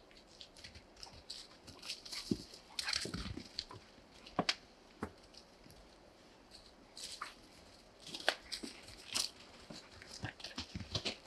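Footsteps crunching and rustling through dry fallen leaves, with a few sharp wooden knocks as sawn boards are carried and handled.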